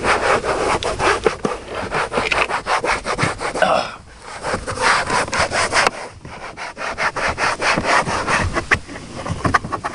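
Cloth towel rubbed hard back and forth over a plastic truck door panel, a fast run of scrubbing strokes with a short pause about four seconds in, wiping off sprayed degreaser and grime.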